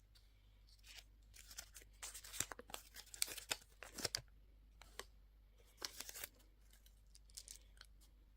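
Candy wrapper being torn open and crinkled in irregular crackly bursts, busiest in the first half, then a few short rustles.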